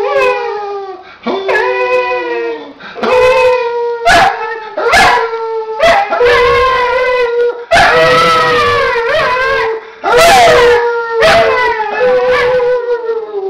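A dog howling in long rising-and-falling howls broken by short yips, while a person howls along on a steady held note.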